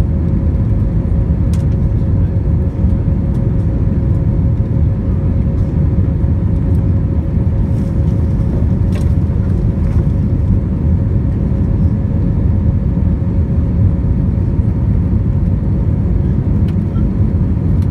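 Cabin noise inside an Airbus A320 in flight shortly after takeoff, heard from a window seat by the wing: the engines and rushing air make a steady, loud rumble with a steady hum running through it.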